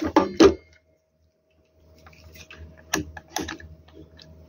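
Sharp clicks and taps of a handheld digital multimeter and its test probes being handled, two louder ones about three seconds in, over a faint steady electrical hum.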